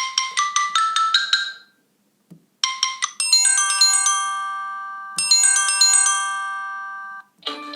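Samsung Galaxy J1 mini stock ringtones with bright, bell-like mallet tones. A quick run of notes stops about two seconds in. After a short gap, a chiming phrase of a few notes rings on and then plays a second time, and another tune begins near the end.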